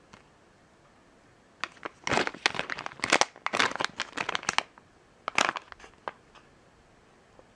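Plastic LEGO minifigure blind bag crinkling as it is handled and turned over in the fingers: a busy flurry of crackles starting about a second and a half in, then a short burst and a few scattered crinkles near the end.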